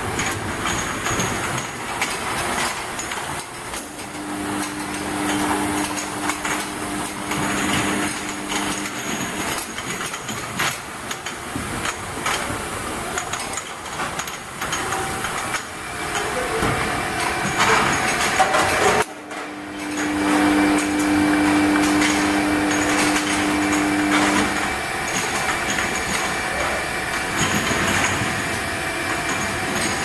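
Automatic ultrasonic bottle washing machine running: continuous mechanical clatter and hiss. A steady hum comes in twice, for about five seconds each time.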